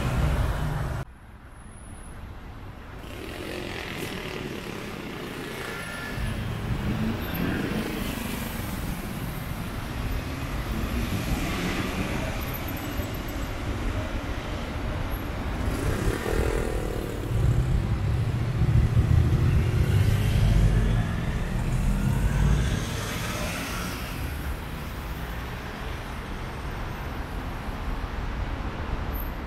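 City road traffic: a bus passing close at the start, then steady traffic noise, with a Paris Métro Line 6 train crossing the steel viaduct overhead and a louder low stretch about two-thirds of the way through.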